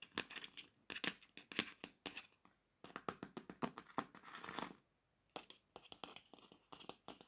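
A squishy toy dumpling being torn open by hand: quiet, irregular crackling and tearing, with a short pause about five seconds in.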